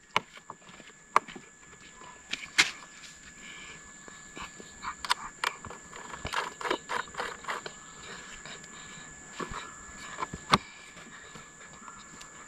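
Small metal clicks and taps of a nut, bolt and washer being fitted and hand-tightened through a clamp on a scooter's plastic front mudguard at the fork leg. There is a run of quick rattling clicks in the middle and a few sharper single ticks elsewhere.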